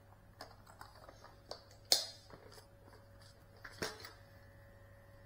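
Light clicks and taps of a hand handling the small FPV drone, its motors not spinning, with two sharper knocks about two and four seconds in over a faint steady hum.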